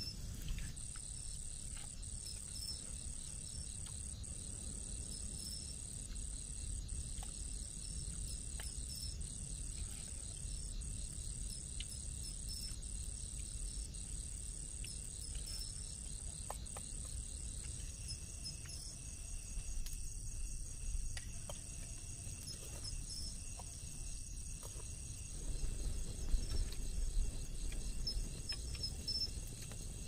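Insects trilling in a steady, high-pitched night chorus, with a faster pulsing trill slightly lower in pitch, over a low steady rumble.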